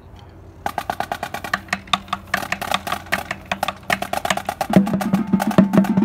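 Drumline's marching drums playing fast, dense strokes, starting about half a second in. A deeper pitched drum comes in louder a little before the end.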